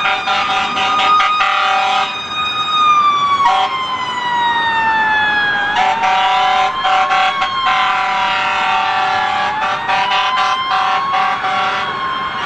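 Emergency vehicle sirens wailing: the pitch of one glides slowly down over a few seconds, then rises and falls slowly, over a steady second tone that drops out briefly and comes back.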